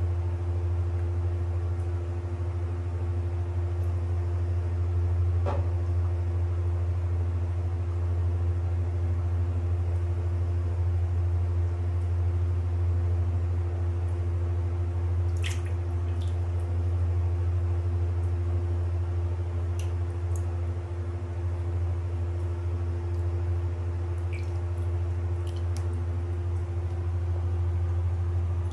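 A steady low hum throughout, with a few faint water drips and small plops in a filled bathtub scattered through it.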